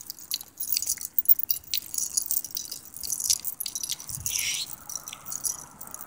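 Light, irregular metallic clicking and jingling of a metal chain necklace jostled by movement.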